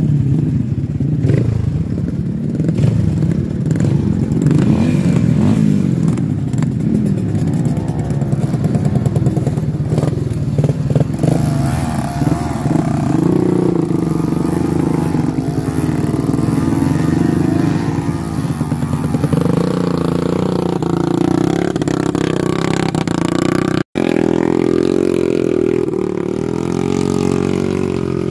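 Motorcycle engine running under load, its pitch rising and falling unevenly through the first half, then holding steadier. The sound cuts out for an instant about 24 seconds in.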